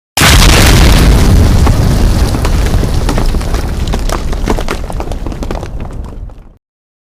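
Rock explosion sound effect: a sudden loud blast that carries on as a heavy low rumble peppered with many sharp cracks, slowly fading over about six seconds and then cutting off abruptly.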